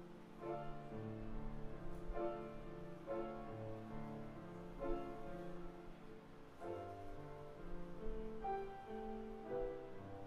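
Slow instrumental offertory music: a piano playing held chords with a melody over them, new notes struck about every second.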